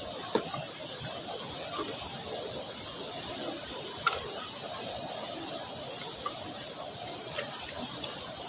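Fast-flowing stream rushing steadily, with a few sharp knocks over it, the loudest about half a second in and about four seconds in.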